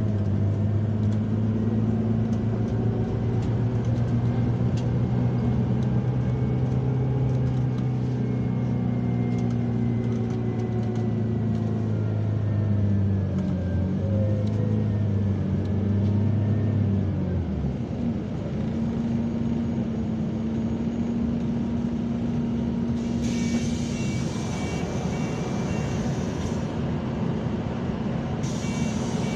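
Scania Citywide articulated natural-gas bus heard from inside the cabin on the move: a steady engine drone under road noise. The engine note drops twice about halfway through, then settles into a new steady tone.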